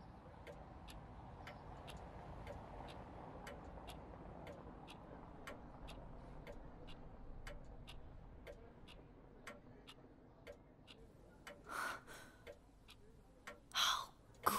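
A clock ticking steadily, about two ticks a second, over faint room ambience. Two brief, louder noises stand out near the end.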